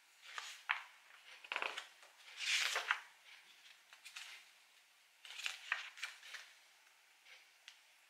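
Packaging rustling and crinkling in short bursts as items are unwrapped and handled by hand. The loudest burst comes a little under three seconds in.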